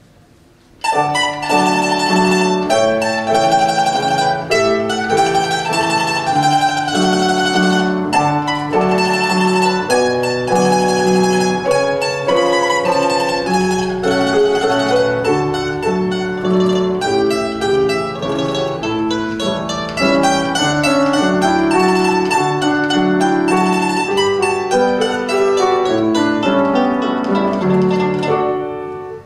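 A tamburica, a small plucked Serbian folk lute, playing a lively melody of quick picked notes, accompanied by a piano. The music starts about a second in.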